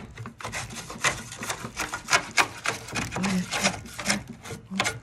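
A small brush scrubbing and scraping caked grease off an oven's door and frame in quick, irregular strokes.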